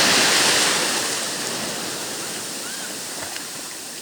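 Sea wave washing in over the shore, a loud rush at first that fades away as the water draws back.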